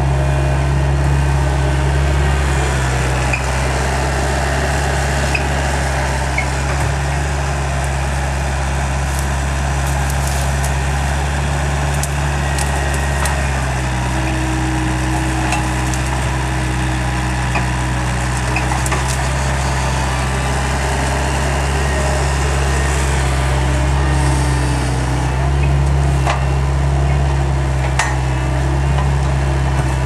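Skid steer engine running steadily under load while the machine works with a grapple root rake, with scattered sharp cracks and snaps of brush and branches being pushed and gripped.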